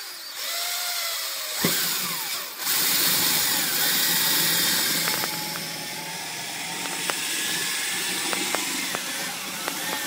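DeWalt cordless drill with a 5/16 inch bit drilling holes through the golf cart's body panel: a steady motor whine that wavers in pitch as the bit cuts, louder from about three seconds in, with a few small clicks.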